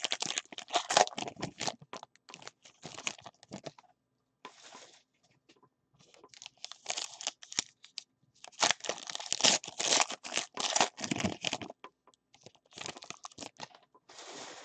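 Trading-card pack wrappers being torn open and crinkled by hand, in three spells of crackling with quiet pauses between: a short one at the start, a long one in the middle and a brief one near the end.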